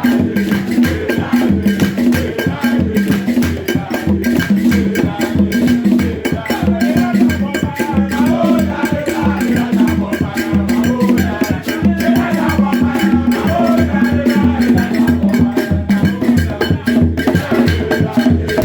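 Loud music with a busy, steady percussion beat and a bass line, played over the hall's sound system during a sound check.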